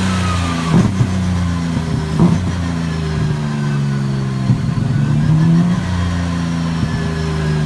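BMW M3 GTR race car engine running on a dyno, held around a fairly steady engine speed with slight rises and dips in pitch. A few short, sharp cracks cut through the engine note.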